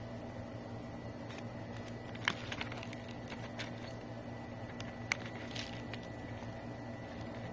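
Crispy fried chicken being pulled apart by hand in an aluminium foil takeaway tray: a few short crackles and clicks, the sharpest about two and five seconds in, over a steady low hum with a faint high whine.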